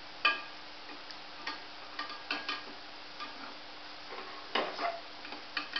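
Gulab jamuns deep-frying in oil in a kadhai with a low steady sizzle, while a spatula knocks and scrapes against the pan in irregular clicks, the sharpest about a quarter second in and several more close together near the end. A faint steady hum lies under it.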